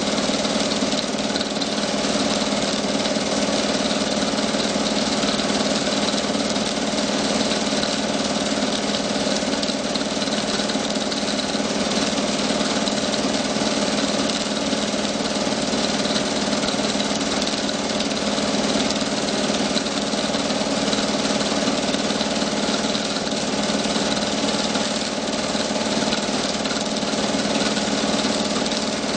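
Film projector running with a steady mechanical whirr that does not change.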